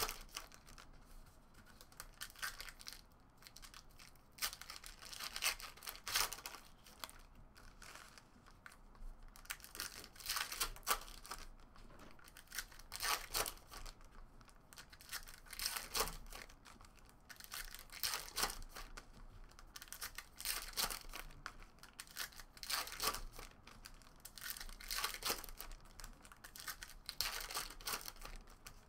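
Foil trading-card pack wrappers being torn open and crinkled by hand, in irregular short bursts of tearing and rustling.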